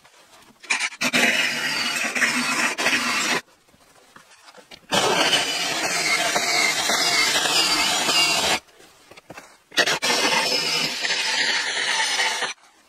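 Power drill running in three bursts of a few seconds each, drilling into a door frame, with a whine falling in pitch during the middle burst.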